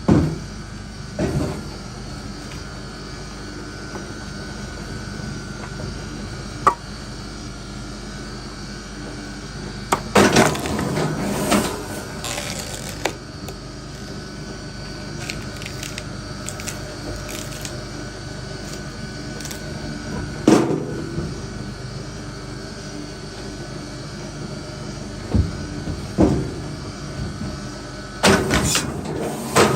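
Wood being split: scattered sharp knocks and cracks, a cluster of them about ten seconds in and several more near the end, over a steady low hum.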